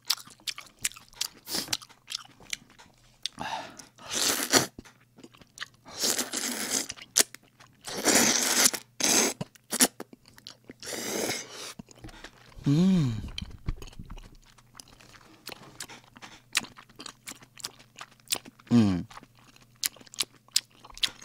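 A person eating cream jjamppong noodles into a close microphone: four long noodle slurps between about four and eleven seconds in, with wet chewing clicks throughout. Two brief hummed voice sounds come at about thirteen seconds and again near the end.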